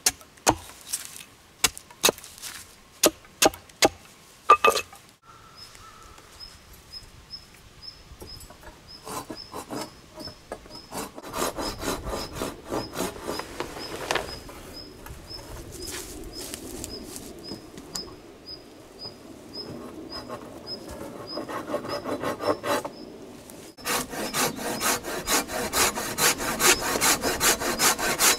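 Wood being worked with hand tools: a few sharp knocks in the first five seconds, then a hand saw cutting wood in uneven strokes that become quick and steady in the last few seconds.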